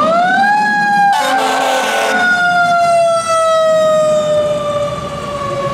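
Fire truck's Federal Q2B mechanical siren spinning up to its peak and then slowly winding down in pitch. A horn blast of about a second sounds over it about a second in.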